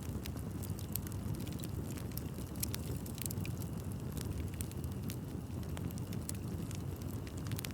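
Bonfire of burning wood: a steady low rumble of flames with frequent, irregular sharp crackles and pops.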